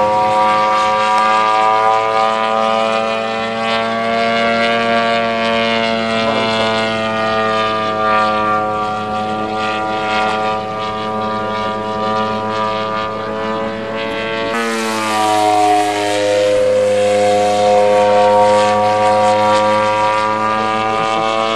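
Radio-controlled aerobatic model airplane's engine and propeller droning in flight, its pitch drifting slowly. About fifteen seconds in the sound changes abruptly and the pitch dips, then climbs back.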